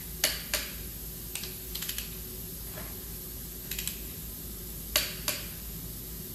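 Ratcheting torque wrench tightening the main bearing cap bolts of an A-series engine block to 85 Nm. Sharp clicks come in two loud pairs, about a quarter second in and about five seconds in, with short runs of quieter ratchet ticks between them.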